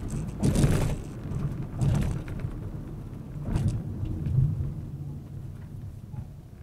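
Car interior road noise and low engine rumble picked up by a dashcam microphone while driving, with three brief louder noisy surges in the first four seconds, growing quieter toward the end.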